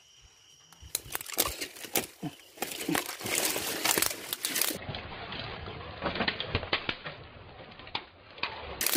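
Leaves and twigs rustling and crackling as someone pushes through undergrowth, with many small snaps and scrapes. It starts about a second in and is densest in the middle.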